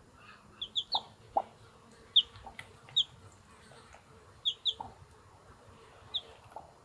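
Day-old chicks peeping in short, high, falling chirps, scattered irregularly, with a Brahma broody hen giving a few low clucks among them.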